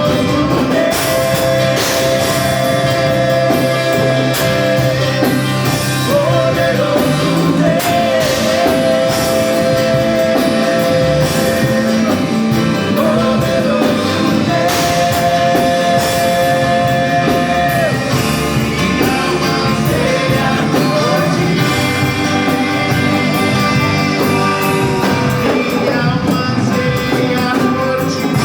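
Music: a song in which a voice sings long held notes, each lasting a few seconds, over a full instrumental backing.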